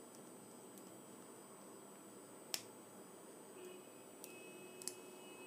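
Quiet room tone broken by a few sharp clicks, the loudest about two and a half seconds in and two smaller ones near the end: side-cutting pliers snapping against and cracking the plastic shell of an AirPods earbud as it is forced open.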